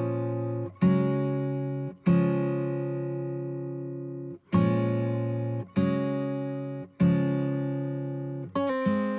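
Acoustic guitar music: slow strummed chords, each struck once and left to ring out for one to two seconds before the next.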